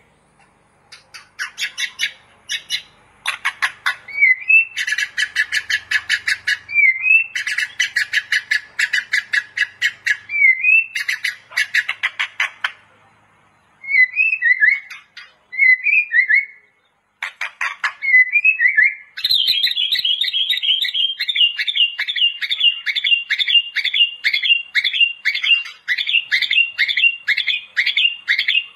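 White-rumped shama (murai batu) singing hard: rapid harsh chattering runs broken by short rising-and-falling whistled notes, then a few sparse whistled phrases, and from about two-thirds in a fast, steady series of repeated notes.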